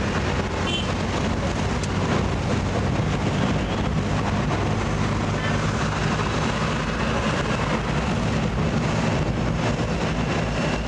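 Steady engine hum and road noise of a moving vehicle in traffic.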